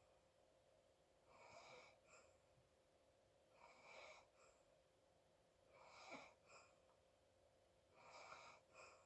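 Faint, rhythmic noisy breathing of a sleeping person: four breaths about two seconds apart, each a longer breath followed by a short second puff.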